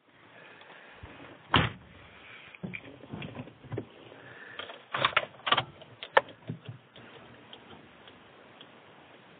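A run of knocks and clicks from handling inside a car cabin, loudest about a second and a half in and again around five to six seconds in, then a low steady hiss.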